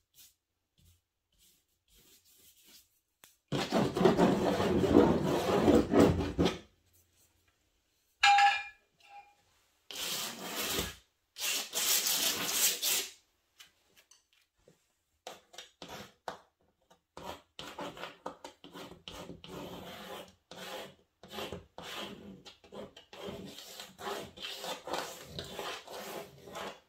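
Art tools scrubbing and scratching on heavy textured watercolor paper mounted on a wooden board. A loud scrub of about three seconds comes a few seconds in, then a short ringing tap, two more scrubbing passes, and a long run of quick, short strokes through the second half.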